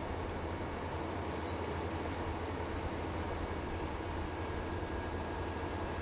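Steady low rumbling drone with faint steady hums, as of fire engines' diesel engines and pumps running.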